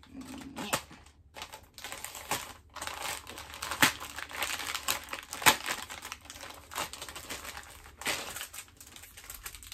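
Stiff plastic packaging of a pantyhose package being worked open by hand with a small pointed tool, crinkling and crackling with many irregular sharp clicks.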